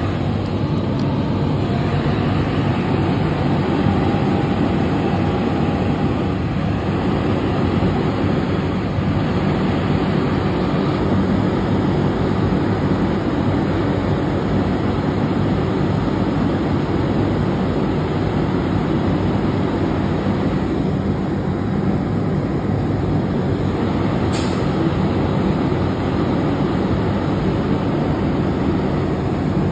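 Diesel engines of several fire apparatus idling together during a morning apparatus check: a steady low drone. A brief sharp click comes about 24 seconds in.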